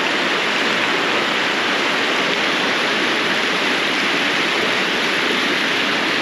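Mountain trout stream rushing and cascading over rocks close by, a loud, steady wash of water.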